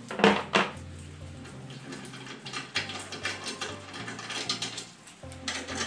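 Hand tools and bolts clinking and rattling against the steel side panel of a Ventrac KC220 stump grinder as its panel bolts are worked loose, with two sharp metal clanks near the start followed by a run of smaller clicks.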